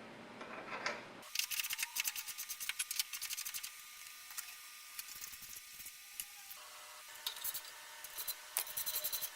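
Hand tool scraping and rubbing on a metal part in quick rasping strokes, in two spells: one starting about a second in, the other near the end, with a few light clicks between.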